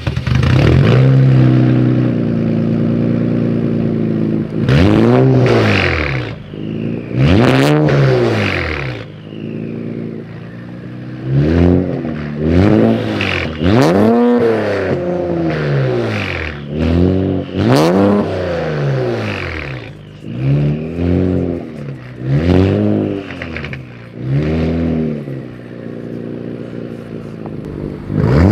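VR30 twin-turbo V6 in a swapped Nissan 350Z, breathing through a titanium straight-pipe exhaust. It idles for a few seconds, then is revved in a dozen or more short blips, often two close together, each rising and falling quickly and settling back to idle between.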